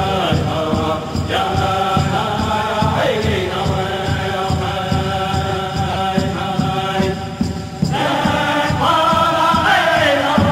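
Native American powwow-style singing: a group of voices chanting over a steady drum beat, each phrase starting high and sliding down in pitch. The voices drop out briefly about three-quarters of the way through.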